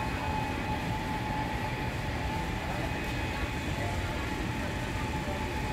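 Steady running of bakery machinery: an even low rumble with a constant faint whine over it, unchanging throughout.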